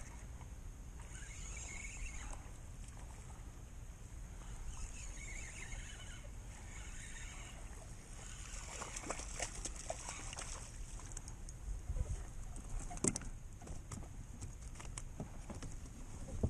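Speckled trout being reeled in and landed: splashing at the surface, then a run of knocks and clatter on the plastic kayak in the second half, the sharpest about 13 seconds in and again at the end, over a steady faint hiss.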